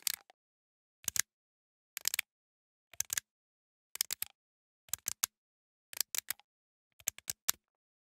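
Plastic sliding power switch on a handheld vibrating massager being pushed back and forth: a short cluster of clicks and creaks of plastic about once a second, eight times, with the motor not running.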